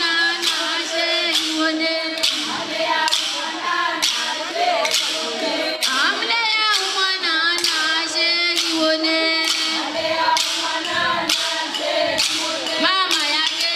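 A woman singing into a microphone through a PA speaker, with other voices singing along over a held low note. Sharp handclaps keep a steady beat of about two a second.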